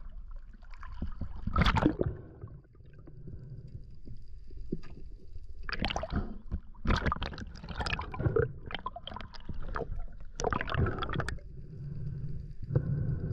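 Sea water sloshing and splashing around a camera riding at the waterline, with muffled gurgling as it dips under the surface, in uneven splashes.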